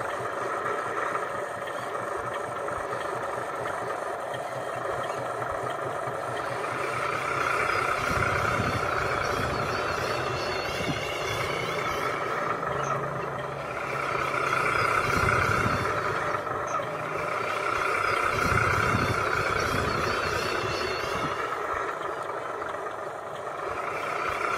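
Radio-controlled model truck running, a steady mechanical whir from its motor and drivetrain that grows louder and softer several times as it drives.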